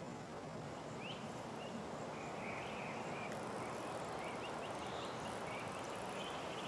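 Steady wind noise, with small birds chirping several times in short high rising notes.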